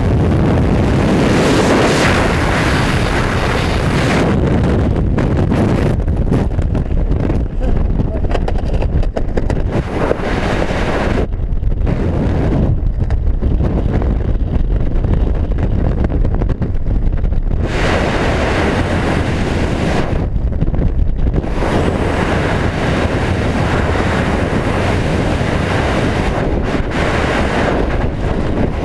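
Wind rushing over a skydiver's head-mounted camera microphone: a loud, steady hiss through freefall and on under the open parachute canopy, its high end thinning out at times.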